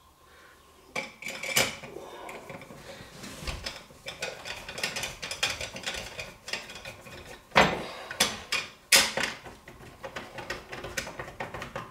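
Hand screwdriver driving a screw through a metal leveling-jack bracket into a particleboard cabinet side: irregular metallic clicks, scrapes and clinks, with a few sharper knocks.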